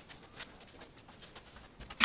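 Quiet workshop with a few faint taps, then a sharp knock at the very end as something is set down on the workbench.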